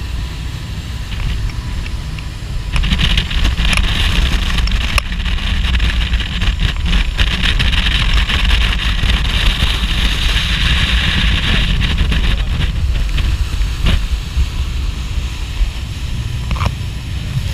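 Strong wind buffeting the microphone on a moving boat's open deck, over the rush of spray and water along the hull. A louder hiss of spray comes up about three seconds in and eases off about twelve seconds in.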